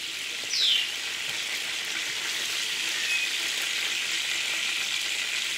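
Hot oil sizzling steadily in a cast-iron skillet as fried cube steaks are lifted out with a spatula. There is a brief high, falling squeak about half a second in.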